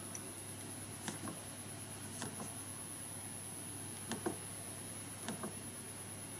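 A Nest Thermostat E clicking as it is turned and pressed by hand: four quick pairs of short clicks, spaced unevenly.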